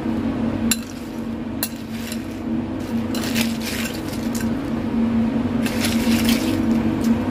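Metal spoon clinking against loose ice cubes and a ceramic bowl: a couple of sharp clinks early on, then longer stretches of rattling, scraping ice as the spoon scoops through the cubes, over a steady low hum.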